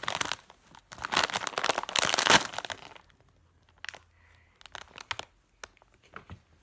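Takis rolled-tortilla-chip bag crinkling loudly as it is shaken and pulled open, for about three seconds, then a few scattered short crinkles as it is held open.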